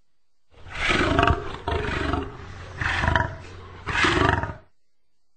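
Lion roaring: four loud, deep roars in quick succession, about a second apart.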